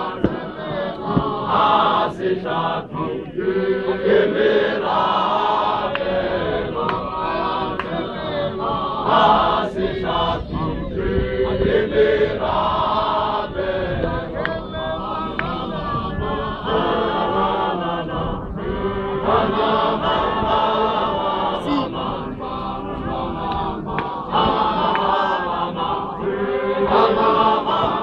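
A men's choir of the ZCC Mokhukhu chants a hymn in unison, in continuous phrases that rise and fall.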